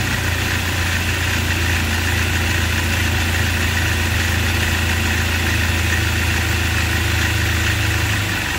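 Toyota 3RZ-FE 2.7-litre four-cylinder engine idling roughly with a steady low drone, bogging down and shaking hard. It runs this way after a head gasket and timing chain job, with no trouble codes; the mechanic thinks it could be the throttle body.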